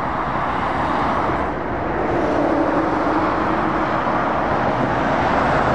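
Motorway traffic: a steady rush of tyre and engine noise from passing lorries and cars, swelling slightly as a DAF XF articulated lorry draws nearer.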